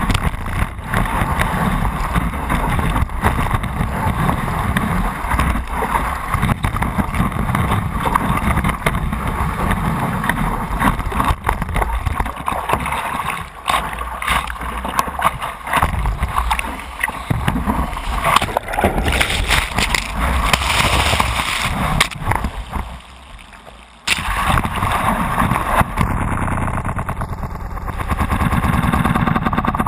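Water rushing and splashing around a stand-up paddleboard as it rides a wave, heard muffled through a board-mounted action camera's housing. It drops away briefly about 22 seconds in, then comes back at once.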